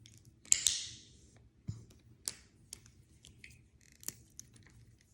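Light clicks and taps of small shape-toy pieces being handled, with a short rustle about half a second in and a couple of faint high chirps later on.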